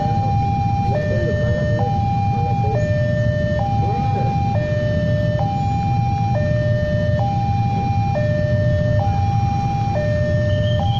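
Railway level-crossing electronic warning alarm sounding a repeating two-tone high-low signal, each tone held just under a second, warning that a train is coming. A steady low rumble runs underneath.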